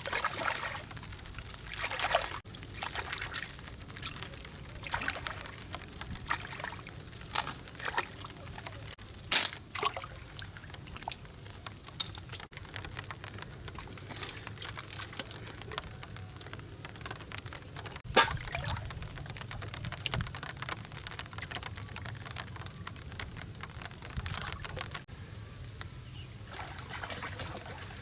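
Water pouring and trickling, with scattered sharp splashes or knocks, two louder ones about a third and two thirds of the way through.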